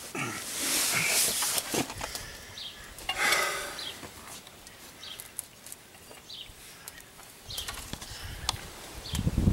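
Rustling and scattered light metal clicks and taps as a new front wheel hub bearing assembly is held against the truck's steering knuckle and lined up so its mounting bolts can be started.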